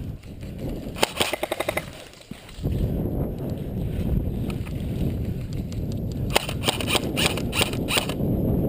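Airsoft guns firing full-auto bursts: a fast, even rattle of shots about a second in, then more bursts and single shots from about six seconds on, over a steady low rumble.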